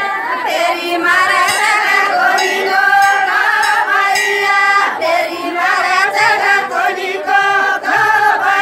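A group of women singing a Banjara folk song together in unison, with sharp clicks now and then.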